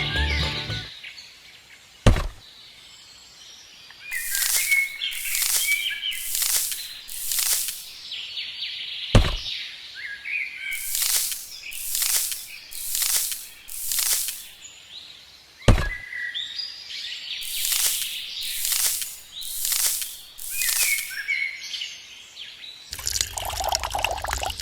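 Small birds chirping over a repeating pattern: a sharp knock, then four hissing bursts about a second apart, the cycle coming round three times about seven seconds apart.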